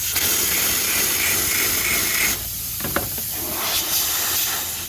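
Pressurised air hissing loudly and steadily out of a lawn mower tire through the puncture as it is opened up with a drill bit, dipping briefly about halfway through.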